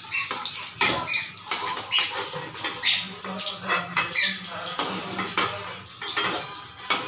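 Metal spatula scraping and clinking against a steel kadhai as fried potato chops are lifted out of the oil and set on a plate, with many short clinks throughout.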